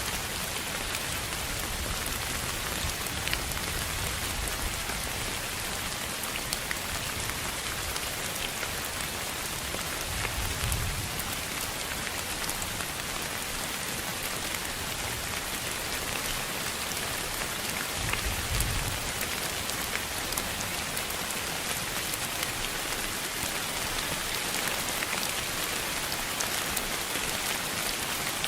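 Steady noise track with a hiss like rain falling on a surface, sprinkled with fine ticks, and two brief low rumbles about ten and eighteen seconds in.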